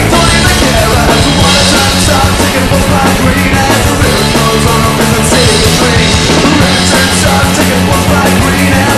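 Loud punk rock band recording: guitar, bass guitar and drums playing at full tilt without a break.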